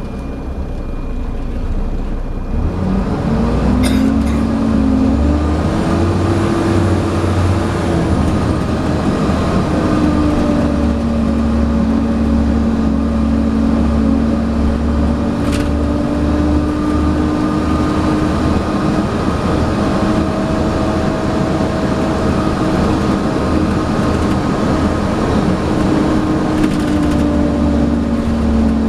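Volvo B7TL double-decker bus heard from on board, working hard with a low engine drone and a vacuum-cleaner-like 'hoover' whine. The whine rises in pitch a few seconds in, then holds steady. Two sharp knocks, at about four and fifteen seconds in.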